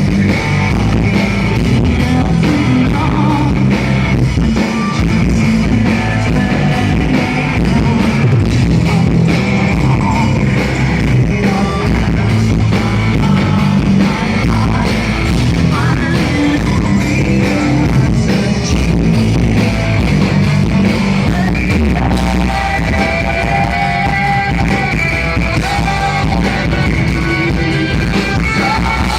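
Live metal band playing at full volume: distorted electric guitars, bass and drums with singing, recorded close to the stage.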